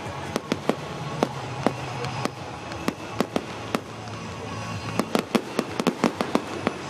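Fireworks display: irregular sharp bangs and pops, coming thick and fast in a rapid cluster about five seconds in, with music playing underneath.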